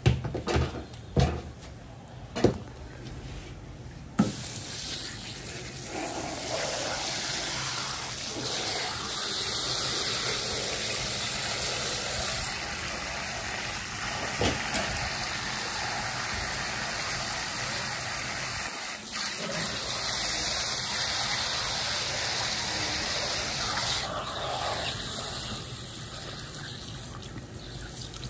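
A few sharp knocks, then water from a faucet's spray head runs steadily onto the skinned puffer fish and the cutting board, splashing as hands rub the flesh.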